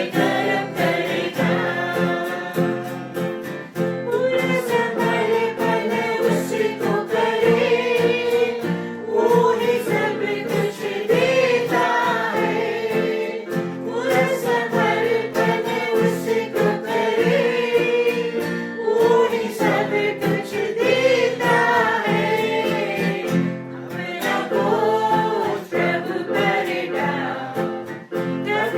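A Christian worship song sung by several voices over a guitar accompaniment.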